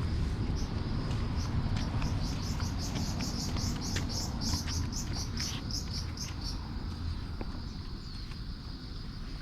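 High, rhythmic chirping, about four chirps a second for several seconds, over a steady high-pitched drone and a low outdoor rumble.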